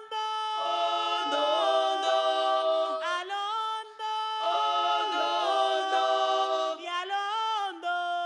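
A group of voices singing a cappella in harmony, holding notes and sliding between them, with no instruments.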